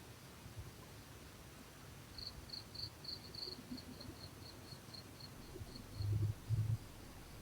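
A chirping insect, as a cricket sounds: short high chirps about four a second, starting about two seconds in and fading away over about four seconds. Two short low thumps come near the end and are the loudest sounds.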